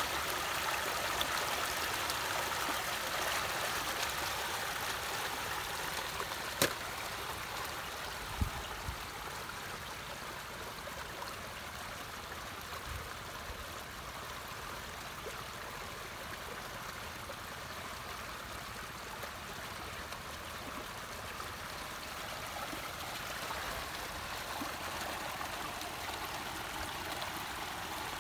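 Muddy water rushing steadily out of an unclogged ditch culvert and churning into the ditch below. A sharp click comes about six seconds in, and a short low thump about two seconds after it.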